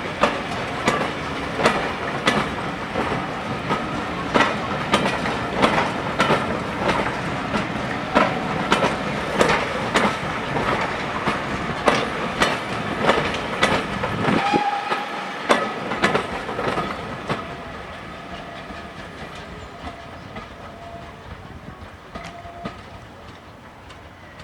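Train passing, its wheels clicking over rail joints in quick irregular strokes over a steady rumble. The sound fades away over the last several seconds as the train moves off.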